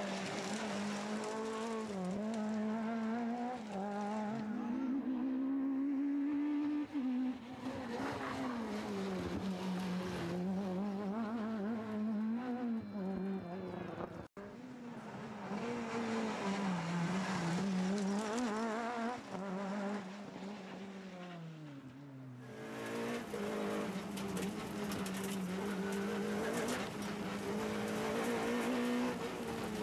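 Talbot Samba rally car's four-cylinder engine revving hard, its pitch repeatedly rising and dropping as it is driven flat out through gear changes and lifts on a stage. The engine sound cuts between clips twice, and the last part is heard from inside the cockpit.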